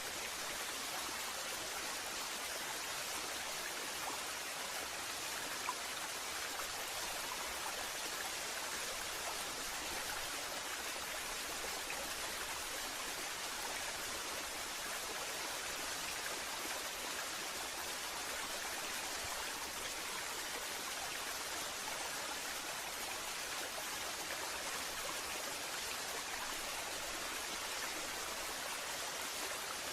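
Waterfall: a steady, even rush of falling water that doesn't rise or fall, with one faint tick about six seconds in.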